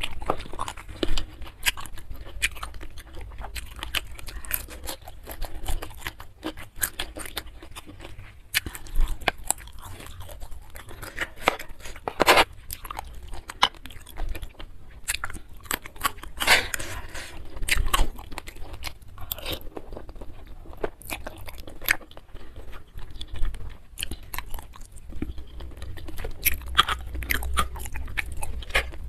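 Close-miked mouth sounds of a person eating: steady chewing with many sharp, crisp crunches throughout.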